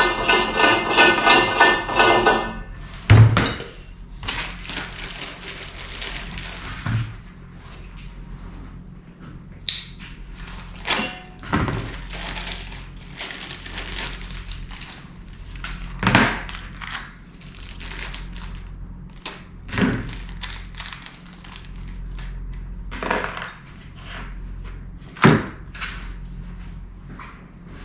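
Workshop handling sounds: scattered knocks and thunks as parts are picked up and set down on a bench, over a steady low hum. A pitched buzz with several tones stops about two seconds in.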